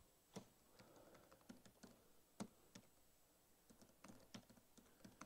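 Faint typing on a computer keyboard: irregular, scattered keystrokes, a few louder than the rest.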